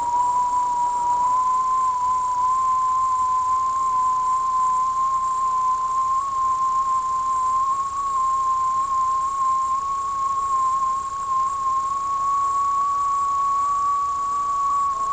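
A steady whistle-like tone, drifting slowly and slightly upward in pitch, with a fainter high whine above it: the strange sound heard in the kitchen, its source not identified.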